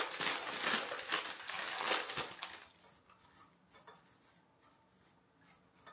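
Weetabix wheat biscuits being crushed by hand into a bowl of yogurt: dry crunching and crumbling for about two and a half seconds, then only faint rustles.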